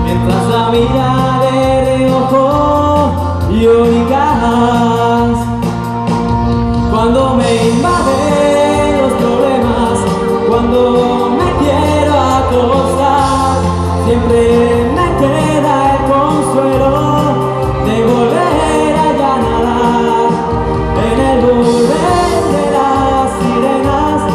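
A man singing a Spanish pop song live into a microphone over an amplified instrumental backing of steady bass and sustained chords.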